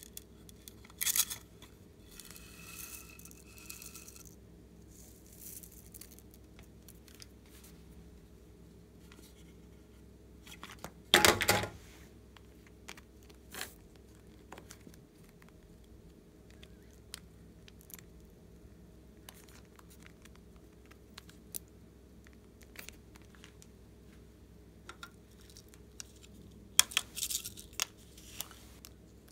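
Hands tearing open and handling small plastic and cardboard toy packaging: a few short bursts of tearing and crinkling, the loudest about eleven seconds in, with scattered small plastic clicks and taps between them.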